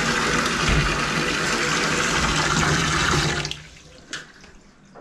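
Water running from a laundry tub faucet into the plastic basin, a steady splashing rush that cuts off about three and a half seconds in, leaving only a faint knock or two.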